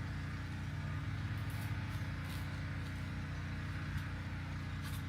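A steady low hum, with a few faint, brief handling noises over it.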